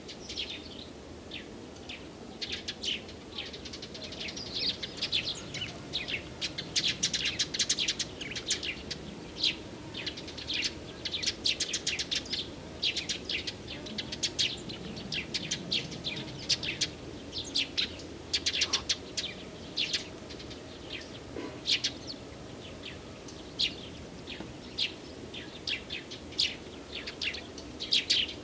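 Small songbirds chirping and singing, a dense run of short, quick calls and trills, with a faint low background noise underneath.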